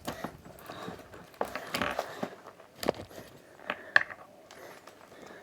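Comic books being handled: faint crinkly rustling with a few light taps and clicks.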